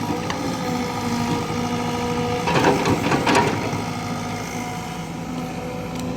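Diesel engine of a CAT excavator running steadily, with a louder burst of scraping and clatter about two and a half seconds in that lasts about a second.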